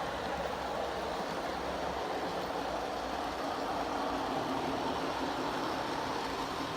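G-scale model freight train running along its track, a steady even rumble of motor and wheels.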